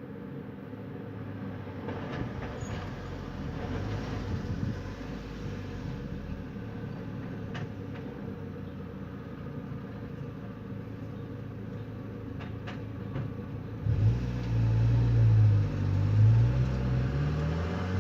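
Steady wind noise outdoors. From about three-quarters of the way in, a motor vehicle's engine comes up loudly and its pitch rises as it accelerates.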